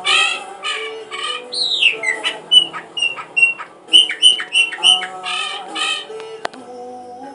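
A bird chirping and squawking in quick bursts of calls, a few sliding down in pitch, over background music with held notes.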